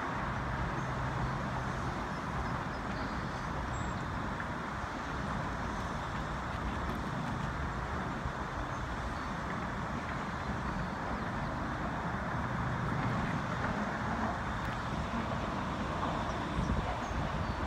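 Steady rumble of road traffic crossing the Golden Gate Bridge, mixed with wind buffeting the microphone.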